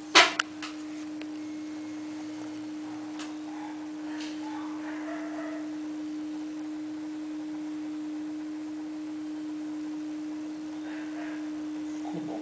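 A steady pure tone, fairly low in pitch, from a test record's tracking-test band, played back by a Gradiente RP-II turntable with an Ortofon MC cartridge. A single sharp click comes just after the start.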